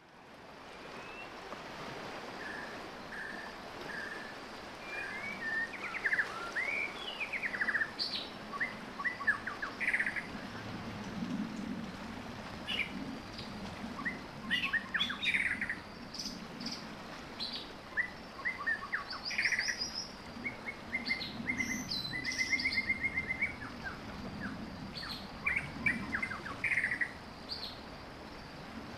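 Birdsong: several birds chirping and singing short trills and quick repeated notes throughout, over a steady low outdoor background.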